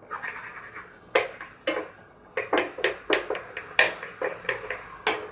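A wooden spatula knocking and clicking against a nonstick frying pan on an induction hob, about a dozen irregular taps, while the pan heats to dry off the water left in it.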